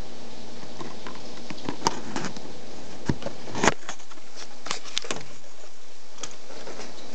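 Tropical-storm rain falling in a steady hiss, with irregular sharp taps of drops landing close by; the loudest taps come about two seconds in and just before four seconds in.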